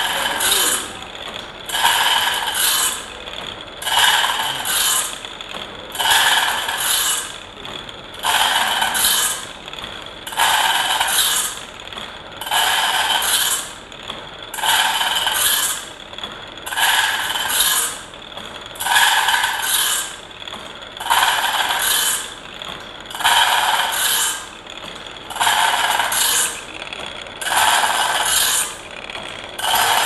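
Automatic band saw blade sharpener grinding a sawmill band saw blade tooth by tooth. Each time the abrasive wheel meets a tooth there is a rasping grind of about a second, about once every two seconds, with quieter machine noise in between.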